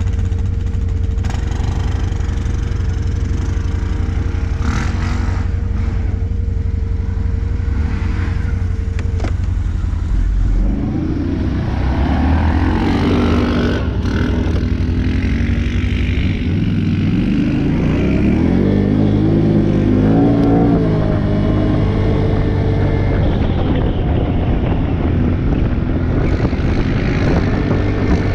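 ATV engine running steadily, then revving up and down repeatedly from about ten seconds in as the quad is driven hard.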